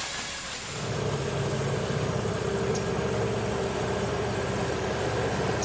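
An engine running steadily with an even hum and a rapid pulsing, starting about a second in.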